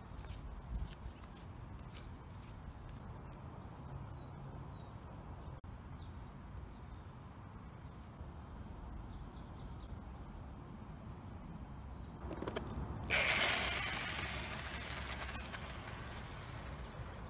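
Small 1/24-scale electric RC car with a brushless motor driving on asphalt: faint outdoor quiet with a few short bird chirps, then, about 13 seconds in, a sudden louder rush of tyre noise with a high motor whine as the car passes close, fading as it drives away.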